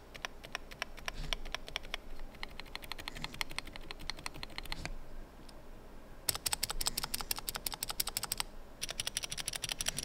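Mechanical keyboard's stabilized keys (Enter and numpad Enter/plus on Cherry PCB-mounted stabilizers) pressed over and over in quick succession: a sound test comparing the stock stabilizers unlubed and lubed. The clacking comes in three spells, with a pause about halfway through and a brief one later.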